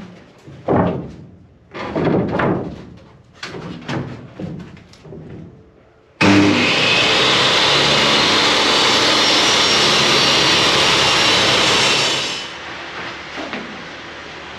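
Benchtop table saw cutting a wooden board. About six seconds in it starts suddenly and runs loud and steady for about six seconds, then dies away. Before that come knocks and scrapes as the board is lined up on the saw table.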